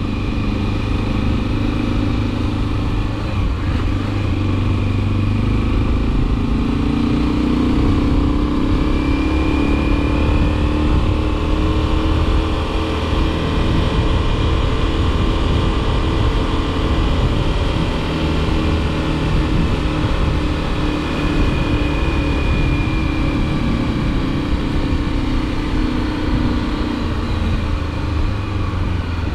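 Motorcycle engine running under way, its pitch rising as it speeds up several seconds in, holding steady, then falling as it slows near the end.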